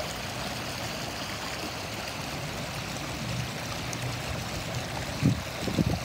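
River water rushing steadily over a flat rock ledge, with whitewater churning along the ledge's edge. A couple of low bumps come near the end.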